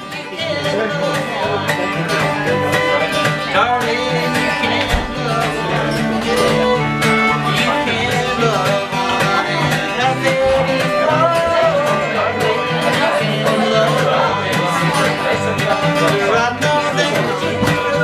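Live acoustic guitar strummed in a steady rhythm, with a fiddle playing the melody over it, in a country-style jam.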